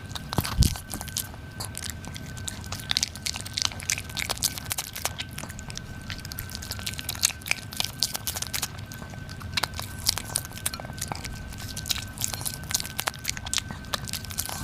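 A Pomeranian chewing, with quick irregular crunches as it bites through cartilage.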